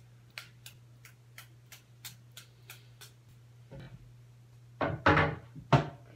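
A run of light, evenly spaced clicks, about three a second, for a couple of seconds, from small items being handled. Then a knock, and near the end two louder knocks as things are picked up and set down, over a steady low hum.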